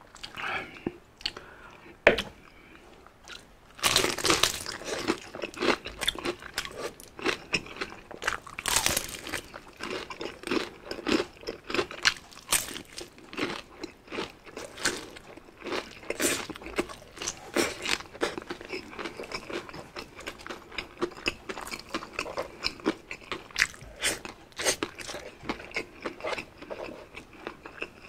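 Crispy spicy fried chicken being bitten and chewed, a dense run of crackly crunches that starts about four seconds in and goes on steadily, after one sharp tap about two seconds in.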